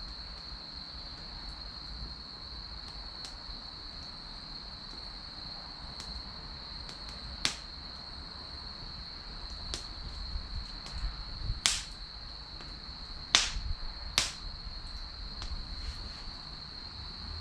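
Wood fire crackling: scattered small ticks and four sharp, loud pops from about seven seconds in, the snap of burning firewood bursting. Under it runs a steady high-pitched insect trill.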